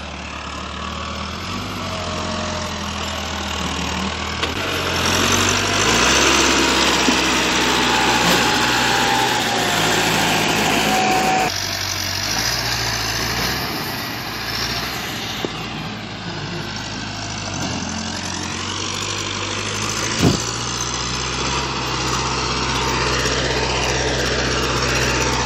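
Massey Ferguson 385 tractor's four-cylinder diesel engine running hard under load, growing louder over the first ten seconds, then dropping in level abruptly. A single sharp knock sounds late on.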